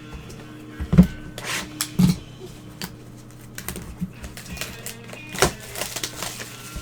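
Handling of trading-card packaging and cards: a few sharp taps and knocks, the clearest about one, two and five and a half seconds in, with some rustling between, over faint background music.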